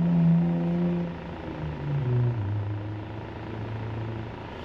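Truck's diesel engine running, heard from the cab. Its steady drone steps down in pitch about two seconds in as the revs fall, then holds the lower note.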